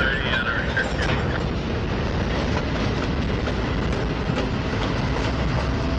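Freight diesel locomotives passing at close range, engines running as they pull, with wheels clicking over the rail joints.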